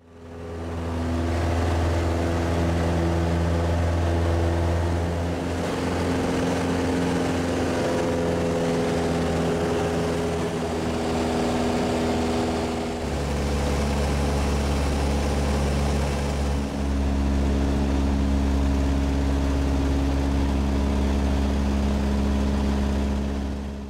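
Light high-wing plane's engine and propeller droning steadily, heard from inside the cabin. The drone steps to a lower pitch about halfway through.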